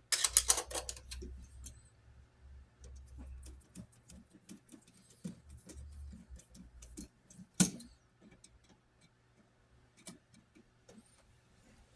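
Small, irregular clicks and ticks of a screwdriver and a copper wire loop being worked on the terminal screw of a wall receptacle. A tight cluster of clicks comes at the start and one sharper click comes about seven and a half seconds in.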